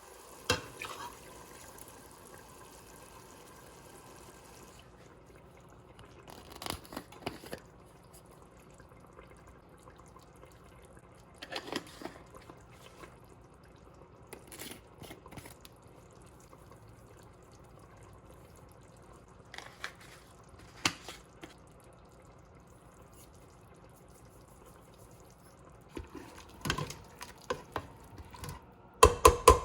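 Scattered kitchen handling sounds with liquid dripping: short clinks and knocks in small groups, loudest near the end, over a faint steady hiss that stops about five seconds in.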